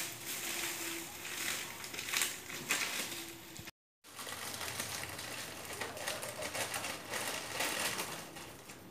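Thin plastic carrier bag rustling and crinkling as it is handled and opened, with a brief dropout a little under four seconds in.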